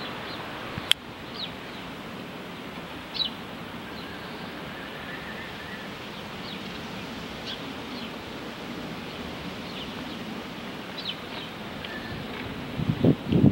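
Small birds chirping briefly every second or two over a steady rushing background noise, with a sharp click about a second in and wind knocking on the microphone near the end.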